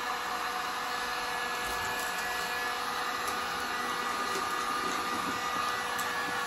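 Corded electric heat gun running steadily, its fan blowing a constant rush of air with a steady whine over it.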